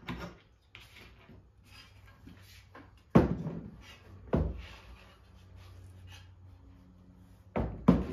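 Metal frame of a laser engraver knocked down onto a worktable while being handled: two heavy knocks a little over a second apart, then another thump near the end, with light rattling between.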